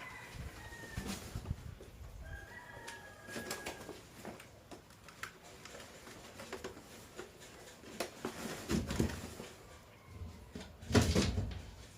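Clicks, knocks and rustling of hands at work, with a louder burst of rustling and knocks near the end. Two faint, drawn-out bird calls sound in the first few seconds.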